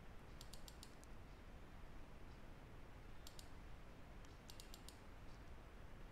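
Near silence with faint, sharp little clicks in a few quick clusters of two to five.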